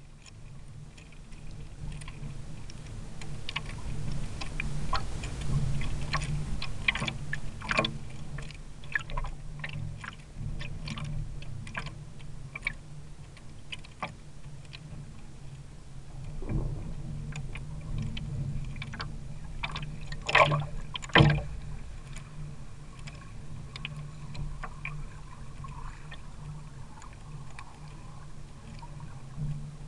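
Water slapping and knocking against the hull of a Mini40 RC trimaran, heard through a camera mounted on the boat: a steady low rumble with scattered clicks and knocks, and two sharp, loud knocks close together about twenty seconds in.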